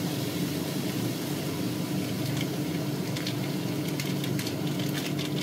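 Ground meat sizzling steadily in a frying pan over a steady low hum, with a few faint crinkles as a plastic sauce sachet is squeezed out over the pan.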